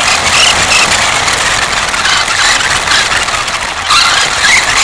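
An RC car driving fast over a brick-paved street, heard from a camera mounted on the car: a loud, steady rattling rush of motor, tyres and chassis on the bricks, with brief high squeaks now and then.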